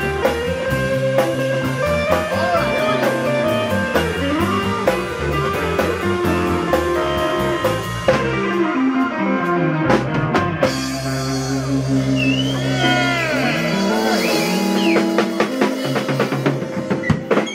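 Live rock band playing: electric guitars, bass and drum kit. About eight seconds in the steady beat breaks off into held chords with bending lead guitar notes over them, as the song winds down.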